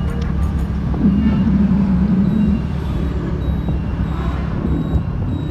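Road vehicle engine and road noise: a steady low rumble, with a louder wavering hum from about a second in that lasts a second and a half.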